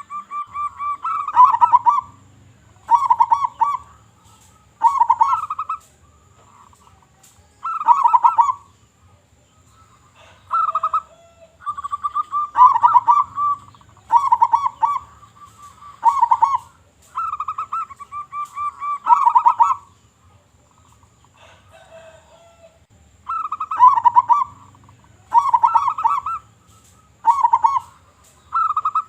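Zebra dove (local perkutut) cooing: a long run of short, rapidly pulsed, rolling coo phrases, one about every two seconds.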